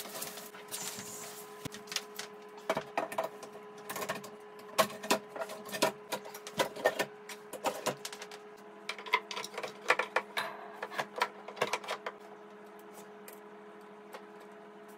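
Irregular knocks, taps and clatter of particleboard desk panels and parts being handled and fitted together during flat-pack furniture assembly, over a faint steady hum. The knocking stops about twelve seconds in.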